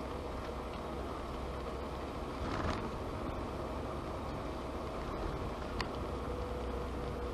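Opel Kadett C Coupe 2.0E's four-cylinder CIH engine running steadily while driving along, heard from inside the cabin with road and tyre noise, with one brief louder rush about two and a half seconds in.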